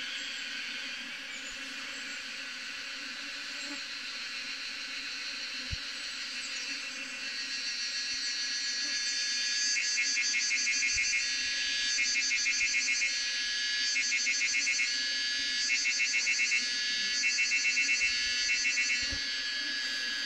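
Insects calling: a steady high-pitched chorus, joined about halfway through by a louder insect song in pulsed bursts about a second long, repeating roughly every second and a half. Beneath it runs a faint low steady hum from the clustered honeybee swarm.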